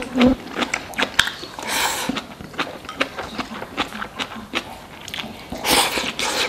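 Close-up eating sounds of a person chewing a mouthful of rice and braised fish: many small wet clicks and smacks, with two louder breathy sounds, about two seconds in and near the end.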